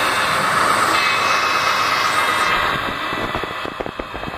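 Model trains running on a layout: a steady hissing running noise that drops in level about two-thirds of the way through, with a few light clicks near the end.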